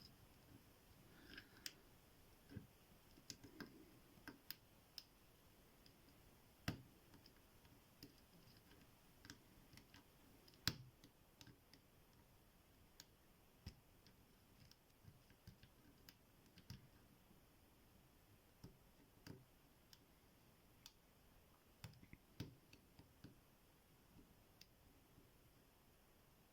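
Faint, irregular clicking of a lock pick and tension wrench working the pins inside an Abus T65AL/40 padlock during single-pin picking, with two louder clicks about seven and eleven seconds in.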